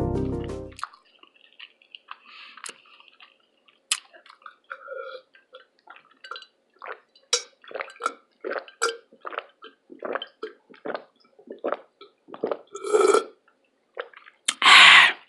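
Close-miked eating mouth sounds: many short wet chewing and lip-smacking clicks, then a loud burp near the end.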